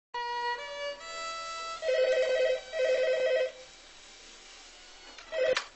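A few held musical notes open, then a landline telephone rings with a fast two-tone trill: two rings in quick succession, and a short third ring cut off near the end.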